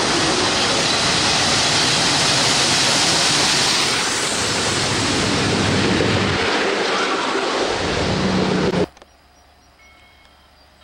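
Southern 2-8-2 steam locomotive No. 4501 and a trailing Norfolk Southern diesel unit passing close by: a loud, steady rushing noise of the train with no distinct exhaust beats. It cuts off suddenly about nine seconds in, leaving only a faint background.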